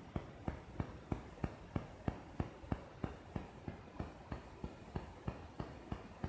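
Steady, regular clicking, about three sharp clicks a second, faint.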